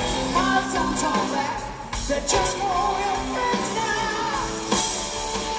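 Live rock band playing with electric guitar and drums, a man's voice singing the lead, recorded from the audience in an arena.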